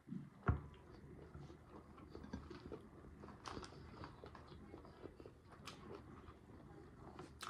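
A person chewing and biting fried red snapper: faint, irregular wet chewing and small crunches, with one louder knock about half a second in.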